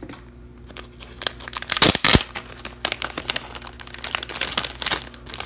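Clear plastic card bag crinkling and rustling as hands open it and slide out a card in a rigid plastic toploader, in irregular crackles with the loudest rustle about two seconds in.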